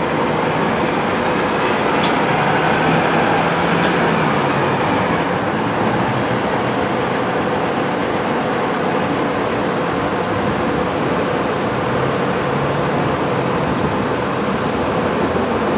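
MCI D4500CT diesel coach pulling away and driving off: a steady drone of engine and road noise with a steady hum running through it.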